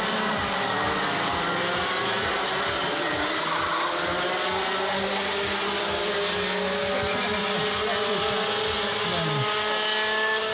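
Several two-stroke racing kart engines running on the circuit, their pitch rising and falling as the karts accelerate and slow through the corners.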